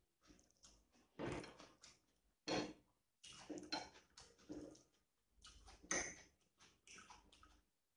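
A person eating rice and curry by hand: chewing and mouth sounds in short irregular bursts, with a few sharper clicks.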